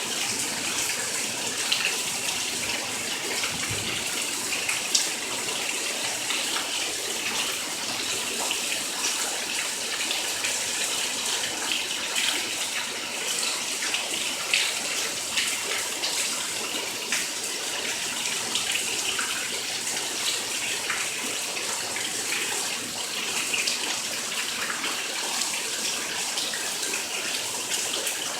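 Steady heavy rain, with many small drop splashes crackling through an even hiss, falling onto standing floodwater.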